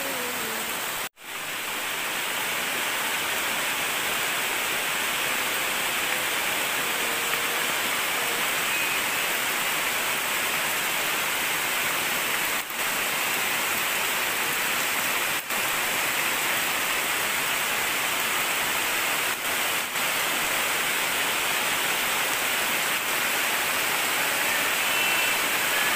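Heavy rain falling steadily on rainforest foliage, a dense, even hiss. It cuts out for a moment about a second in.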